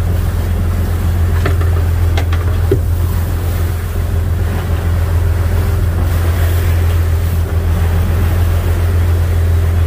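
Sportfishing boat's engine droning steadily at trolling speed, with wake water rushing behind the stern. A few light clicks sound in the first three seconds.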